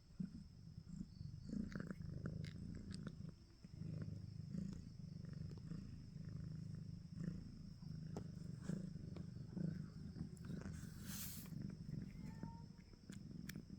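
Domestic cat purring up close: a low rumble that swells and eases every couple of seconds as it breathes in and out. A short hiss of noise comes about eleven seconds in.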